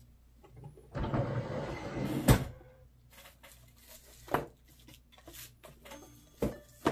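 Handling noise from a phone being held and shifted on a tabletop: about a second of rustling that ends in a sharp knock, then a few softer knocks.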